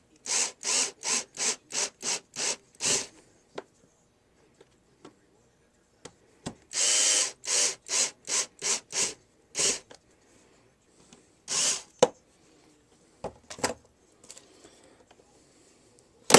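Screws being driven into the plastic housing of Conair HC240KD hair clippers with a screwdriver. The tight screws grind in short, regular rasping strokes, about three a second, in two runs, then a few single turns near the end.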